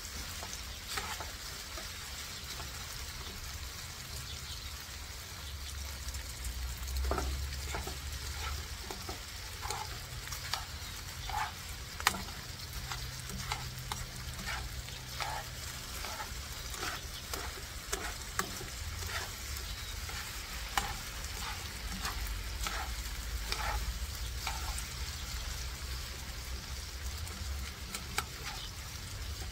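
Chicken tocino sizzling in a frying pan while it is stirred with metal tongs. The tongs click and scrape against the pan every second or so, over a low steady rumble.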